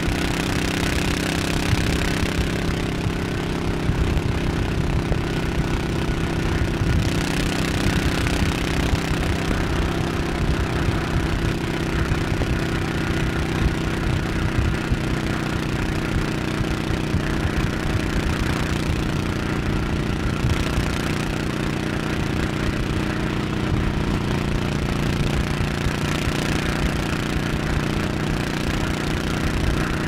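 Honda cruiser motorcycle engine running at a steady pace, with wind and road noise that swells and eases from time to time.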